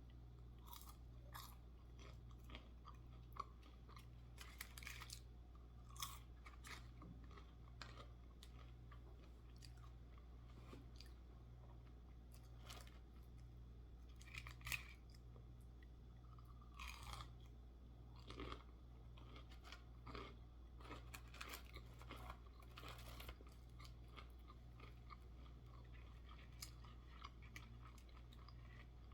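A person chewing and crunching on fried chicken tenders and fries, with irregular crisp bites scattered throughout, over a faint steady low hum.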